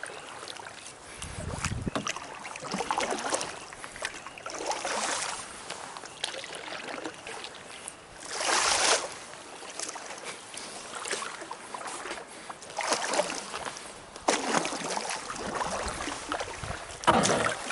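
Canoe paddle strokes in calm water: a run of swishes and splashes as the blade dips and pulls, about every one to two seconds, loudest about halfway through and again near the end.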